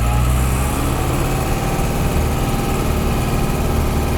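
Case 885XL tractor's diesel engine running steadily as the tractor is driven along in high gear.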